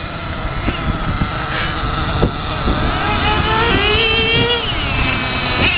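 Remote-controlled model race car's motor running at speed, a high-pitched whine that rises and falls as the car accelerates and slows, climbing steeply a few seconds in.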